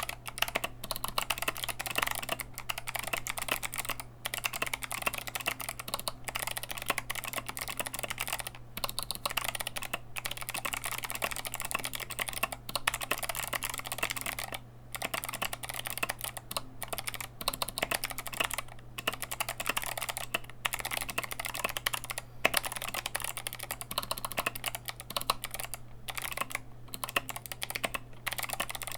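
Fast, continuous typing on a foam-modded Anne Pro 2 mechanical keyboard with clicky Kailh Box White switches: a dense run of sharp key clicks, broken by a few brief pauses.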